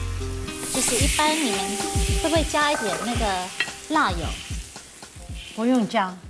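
Twice-cooked pork (boiled pork belly with spring onions) sizzling and being stirred in a hot wok, the hiss loudest about a second in.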